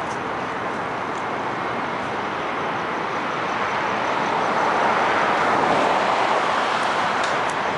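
Steady traffic noise, swelling as a vehicle passes about two-thirds of the way through.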